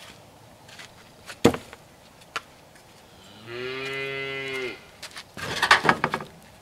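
A cow lowing once in a long, steady moo about halfway through. A sharp knock comes about a second and a half in, and a quick run of wooden clacks follows near the end as a wooden-handled tool is leaned against the coop.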